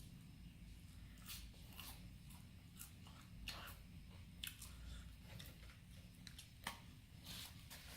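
Faint close-up chewing of a chicken sandwich, with irregular small clicks of the mouth.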